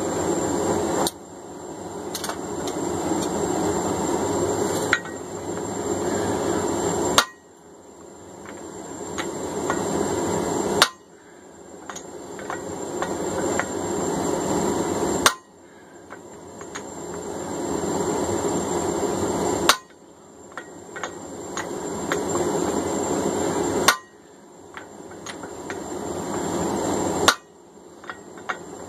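Hand hammer striking a hot punch that is being driven through a hammer-head blank to form the eye. There are eight single sharp blows, one every three to four seconds, as the punch is turned between strikes, with light clinks of the punch in between. A steady rushing background drops out at each blow and swells back up after it.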